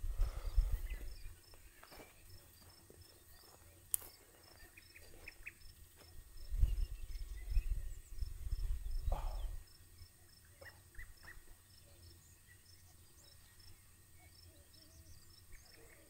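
A cricket chirping in a steady high-pitched rhythm, about two to three chirps a second, with a pause of a few seconds in the second half. Gusts of wind rumble on the microphone near the start and again in the middle.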